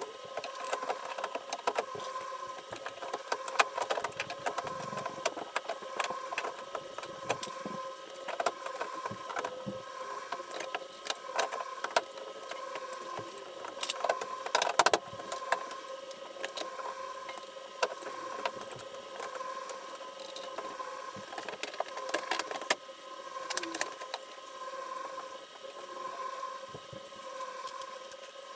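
Irregular clicks, taps and knocks of hands and tools working the plastic liner and fasteners inside a car's front wheel well, a few louder knocks among them, over a steady hum.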